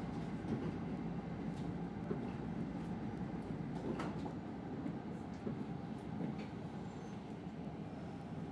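Kintetsu Ikoma Line electric commuter train running along the track, heard from inside the cab: a steady rumble of wheels and running gear, with one sharp knock about four seconds in.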